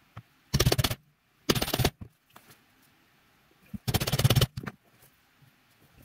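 A white plastic mallet hammering a leather corner punch through thick leather onto a cutting mat to round off a corner: three short flurries of rapid blows, about half a second, one and a half seconds and four seconds in.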